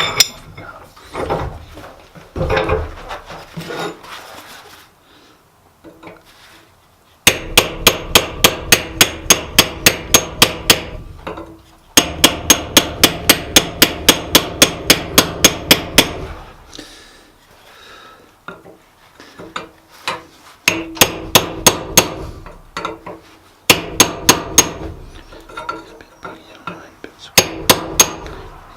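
Blacksmith's hammer striking steel on an anvil, forging an S hook. A few seconds of lighter, irregular knocks give way to several runs of quick, even blows at about four a second, the anvil ringing under each run, with short pauses between the runs.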